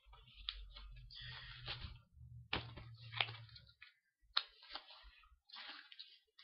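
Vinyl record sleeves and jackets being handled: rustling, sliding and scattered clicks and taps, with a low rumble of handling in the first few seconds.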